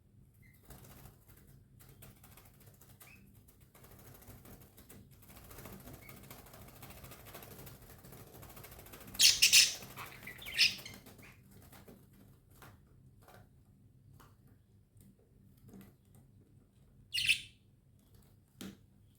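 Pet budgerigars: a few short, sharp chirps, the loudest cluster about nine seconds in, another soon after, and two more near the end, with faint fluttering and rustling in between.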